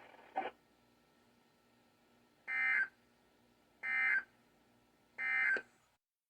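NOAA Weather Radio SAME end-of-message code: three short bursts of digital data tones, about a second and a half apart, marking the end of the broadcast.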